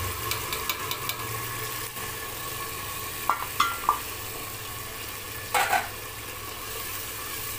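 Masala paste sizzling in hot oil and browned onions in a pressure cooker, stirred with a wooden spatula, with light clicks. A steel bowl clinks against the cooker three quick times about three and a half seconds in, and there is a brief louder clatter near the end.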